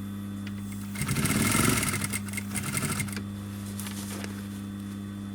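Sewing machine stitching through the thick fabric of a backpack handle in short runs, a longer one about a second in and a couple of brief ones after, over a steady motor hum. The seam is being sewn over and over to reinforce the handle.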